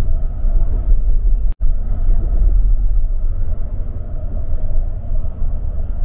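Steady low rumble of a bus's engine and tyres heard from inside the cabin while it cruises along a highway. The sound cuts out for an instant about a second and a half in.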